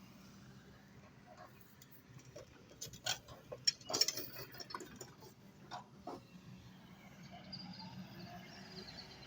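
Excavator engine running low and steady, with a run of sharp clicks and knocks in the middle, loudest about four seconds in.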